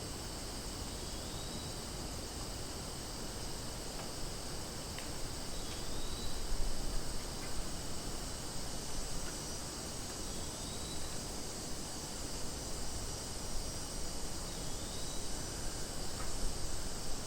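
Cicadas buzzing in a steady, high, continuous chorus. Faint short rising chirps recur every few seconds over it, with a low rumble underneath.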